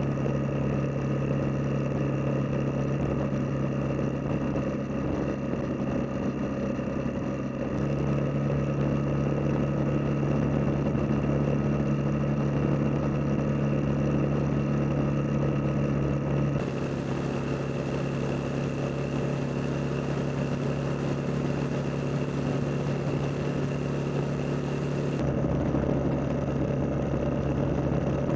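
Motorcycle engine running steadily at highway speed, heard from a camera mounted on the bike, with wind and road noise. The tone shifts abruptly a few times, about eight, sixteen and twenty-five seconds in.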